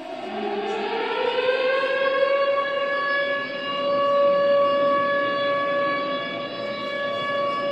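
Commemoration siren sounding for a moment of silence: it winds up in pitch over about the first second, then holds one steady tone.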